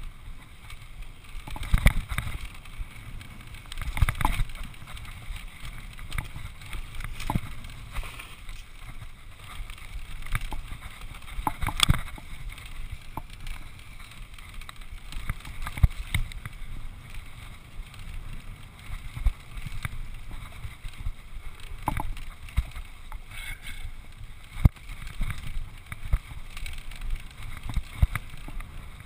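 Norco Revolver 9.2 HT hardtail mountain bike ridden fast over a rough grassy singletrack: a continuous rumble of tyres and rushing air, broken by frequent sharp knocks and rattles as the bike jolts over bumps.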